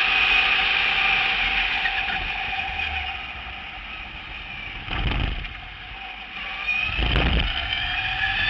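Onboard sound of an electric race car's AC Propulsion motor: a high whine that fades as the car comes off the power for a bend, two low thumps about five and seven seconds in, then the whine rising again near the end as it accelerates out.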